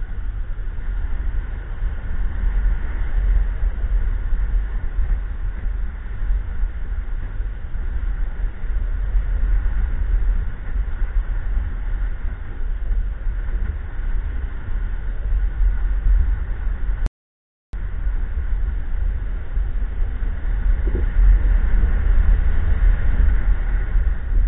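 Wind noise from the airflow of a paraglider in flight buffeting the camera's microphone: a loud, steady low rumble. The sound cuts out completely for about half a second about 17 seconds in.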